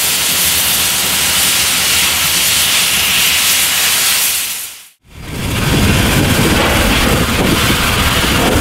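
Steady hiss of the mechanical stoker's steam jets blowing coal into the firebox of Pere Marquette 1225, a 2-8-4 Berkshire steam locomotive; it fades out about five seconds in. A louder rush of steam with a deep rumble follows, from the locomotive's open cylinder drain cocks.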